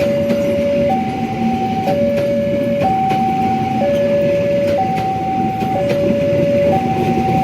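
Railway level-crossing warning alarm sounding an electronic two-tone signal, alternating low and high about once a second, over the steady rumble of a train.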